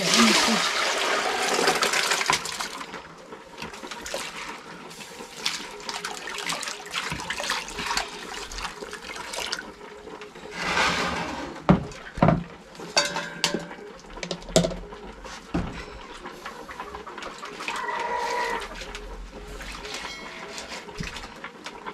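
Water poured off soaked seeds from a plastic basin into another container: a loud splashing pour for about the first two and a half seconds. After that, hands swish and rinse the seeds in water, with another short pour near the middle and a few sharp knocks of metal pots and basins.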